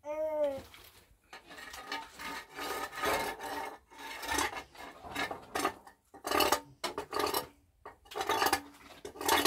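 Steel trowel scraping and spreading wet plaster across a cinder-block wall in repeated rasping strokes, with scoops of plaster from a basin between them.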